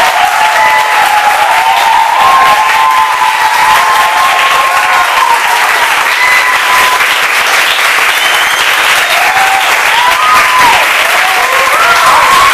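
A large group of people applauding, clapping hands steadily, with voices calling out over the clapping.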